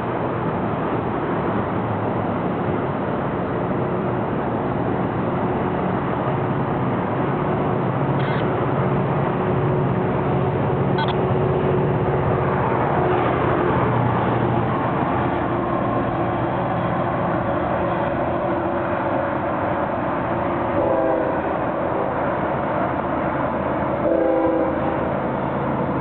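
Train running past with a steady diesel engine drone and rail noise. Near the end come two short locomotive horn blasts from the approaching GE ES40DC freight locomotive.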